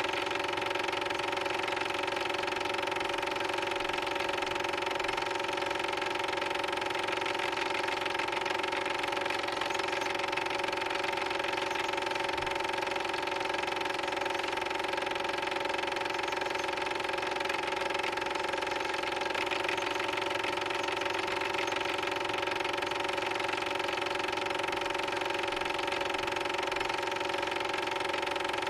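A cine film projector running with a steady mechanical whirr, several fixed tones held without change.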